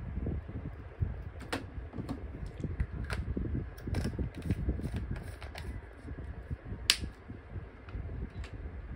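Scattered sharp plastic clicks and taps as an ink bottle is handled and the ink tank caps of an Epson L3216 ink-tank printer are pressed closed; the loudest click comes a little under seven seconds in. Under the clicks runs a low handling rumble.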